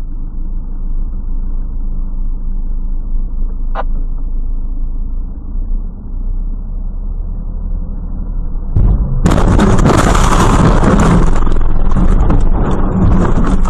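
Steady engine and road noise of a car being driven. About nine seconds in, a much louder rushing noise breaks in suddenly and carries on for several seconds.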